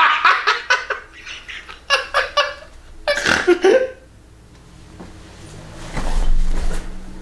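A man laughing hysterically in loud bursts that die away about four seconds in. Near the end comes a low thump with a rustle.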